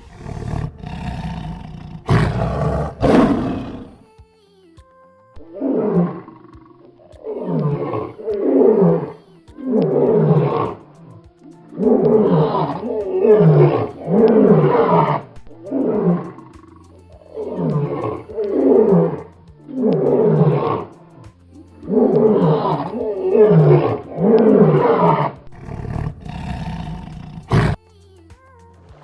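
An animal calling loudly in a long series of roughly one-second calls, each falling in pitch, often in pairs, over faint background music.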